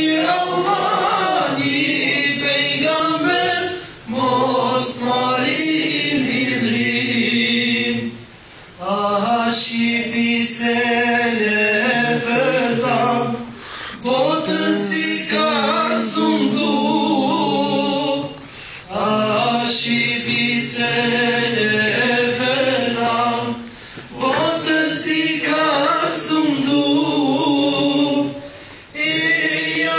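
A group of voices singing unaccompanied, in phrases of about four to five seconds with brief pauses for breath between them.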